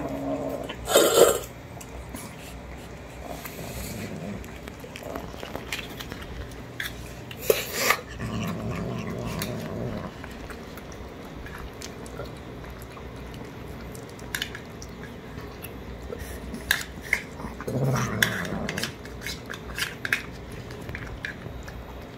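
Kittens eating wet canned food from stainless steel bowls: chewing and licking, with a plastic spoon clicking and scraping against the metal bowl. A sharp clatter about a second in, and a low cat growl twice, typical of kittens guarding their food.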